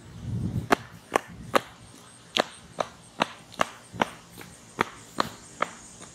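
Running footsteps on a concrete sidewalk: sharp, even footfalls about two and a half a second, with a short break about two seconds in.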